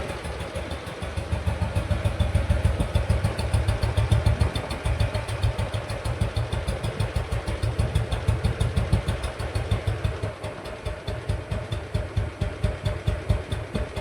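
Royal Enfield Bullet single-cylinder engine running at a steady idle, with an even, rapid beat of exhaust pulses. It runs with its cam gears just reset after an over-tight gear pitch that had made them noisy.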